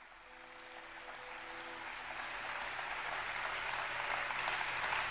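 Audience applause at a live concert, growing steadily louder. A few faint held notes die away under it in the first two seconds.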